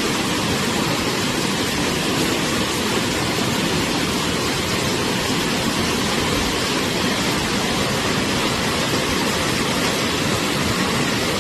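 A tall waterfall's steady, unbroken roar of falling water.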